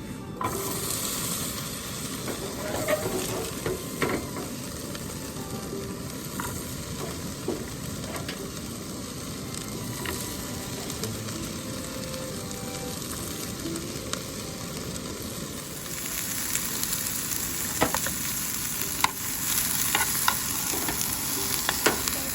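Food sizzling as it fries in a pan, a steady hiss that grows louder and brighter about two-thirds of the way through, with occasional sharp clicks of a utensil against the pan.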